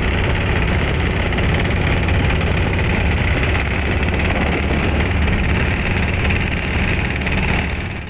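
Boat engine running steadily while the wooden boat moves across the lake, with water rushing along the bow.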